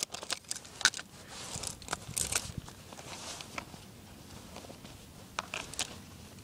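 Scattered rustling and light clicks of handling, busiest in the first few seconds, then quieter, with a couple more clicks near the end.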